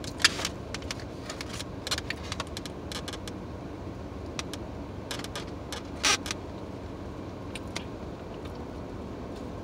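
Steady low hum of a car cabin, with scattered short clicks and rustles of things being handled; the sharpest come just after the start and about six seconds in.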